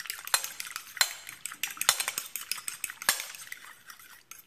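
A metal fork beating a raw egg in a ceramic plate: quick, rapid clicking of the tines against the plate, with a few louder clinks, tapering off near the end.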